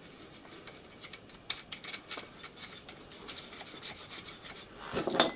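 An RC car's wheel nut being threaded onto the axle by hand: faint rubbing with scattered small clicks, and a louder short scrape near the end.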